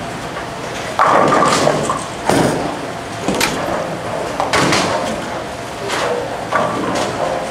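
Bowling alley din: balls rolling down the lanes and bowling pins crashing, a loud clattering crash every second or so over a steady rumble.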